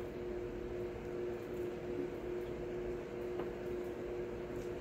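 Steady background hum with an even hiss, like an appliance or fan running in a small room.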